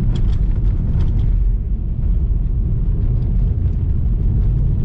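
Lada Vesta cabin noise while driving over a rough, potholed dirt road: a loud, steady low rumble of tyres and suspension, with a few sharp knocks in the first second.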